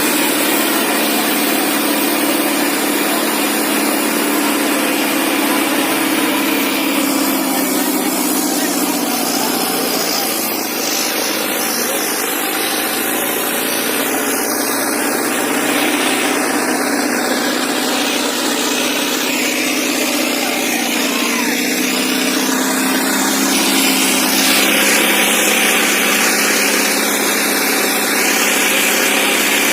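Indo Farm 3055 DI tractor's diesel engine running steadily under load while pulling two harrows.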